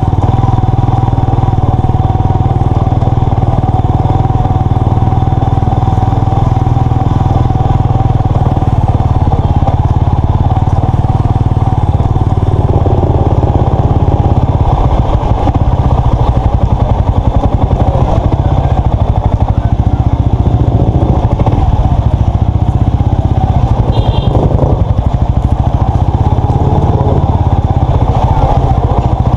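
Motorcycle engine running as the bike rolls slowly in low gear, picked up close from the rider's seat, a steady low rumble throughout.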